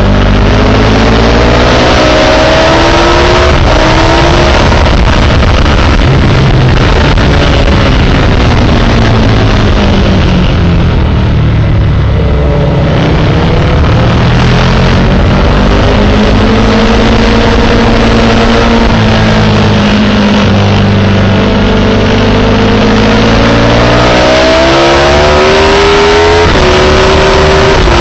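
Sport motorcycle engine running hard on a race track, its pitch climbing and falling repeatedly as the rider accelerates, shifts and brakes through the bends, with a sharp drop near the end. A dense rush of wind noise runs under it.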